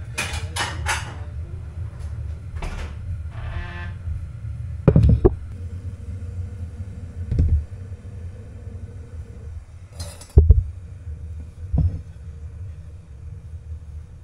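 Steamer pot and its lid being handled: several sharp knocks and clatters of ceramic and metal cookware, the loudest about five and ten seconds in, with a short hiss just before the second, over a low steady rumble.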